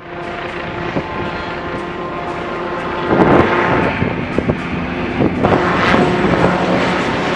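General Atomics Mojave drone's propeller engine running as it lands and rolls along an aircraft carrier's flight deck, getting louder about three seconds in.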